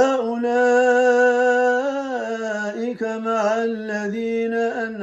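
A man reciting the Quran in melodic tartil style in the Warsh reading. He holds a long drawn-out vowel on one steady pitch, then steps down slightly and continues with shorter ornamented melodic turns after a brief break.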